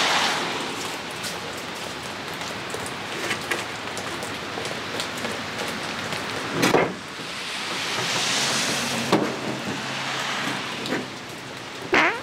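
Steady rain falling on a wet gravel yard and truck. Tyres hiss on the wet road as a car passes at the start, fading within a second or so. A sharp knock comes about seven seconds in and another near the end, as a small outboard motor is handled in a pickup's bed.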